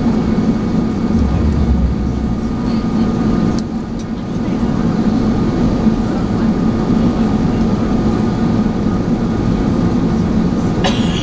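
Steady cabin noise of an Airbus A380 airliner in descent, heard inside the cabin: a constant hum from the engines and rushing airflow with a faint steady tone. A brief sharper sound comes right at the end.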